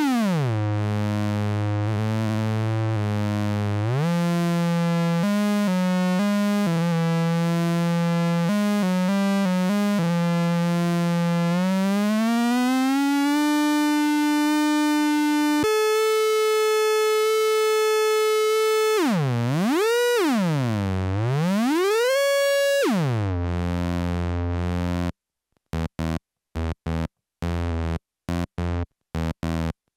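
Handmade 9-volt CMOS square-wave synthesizer playing a buzzy tone. The pitch dives at the start, then holds notes that step from key to key, glides up, and sweeps down and back up twice. Near the end it breaks into short, rapidly chopped stuttering notes.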